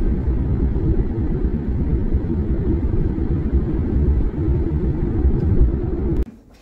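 Steady low rumble of a car driving on the highway, road and engine noise heard from inside the cabin, cutting off suddenly about six seconds in.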